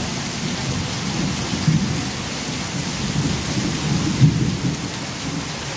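Heavy rain pouring down steadily and splashing on a flooded street. Brief low rumbles swell up, the strongest about a second and a half in and again about four seconds in.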